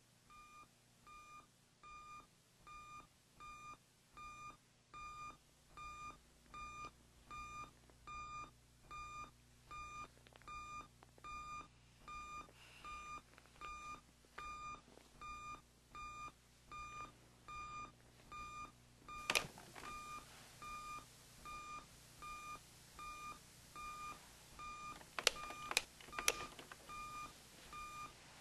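Digital alarm clock beeping, a single steady tone repeating about three times every two seconds and growing louder over the first several seconds. A sharp click comes about two thirds of the way through, with three more near the end.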